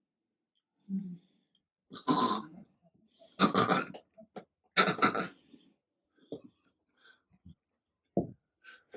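A person coughing and gagging in three harsh bursts, each about half a second long, followed by a few smaller throaty sounds.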